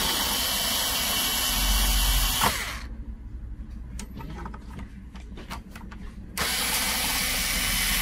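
Cordless power screwdriver running in two spells of about three seconds each, backing out the Phillips screws that hold an SSD caddy. Faint clicks come in between.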